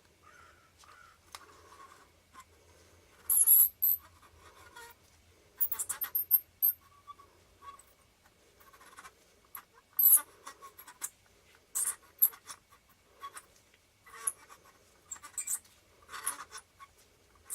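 Small scrapes and clicks of lens parts being handled and turned to catch their screw thread during reassembly of an AF Micro Nikkor 60mm f/2.8D lens. They come irregularly, loudest a few seconds in and again about ten seconds in.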